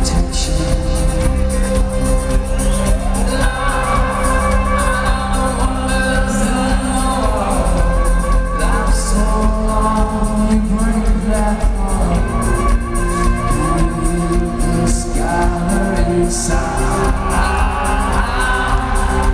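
Live rock band with a male lead singer singing over the full band, heard from the audience with the echo of a large arena.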